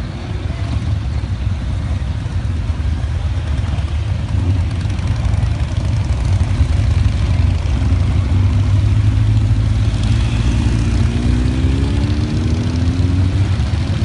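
Motorcycle engines running as bikes ride slowly past at low speed, a steady deep rumble that grows louder about halfway through. In the second half the pitch of one passing engine falls as it slows and goes by.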